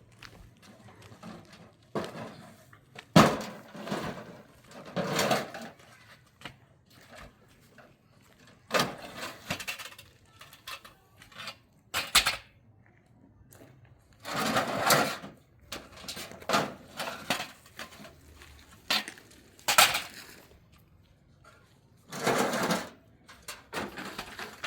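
Intermittent knocks and clatter, a dozen or so separate short bursts with quiet gaps between, some sharp and some scraping.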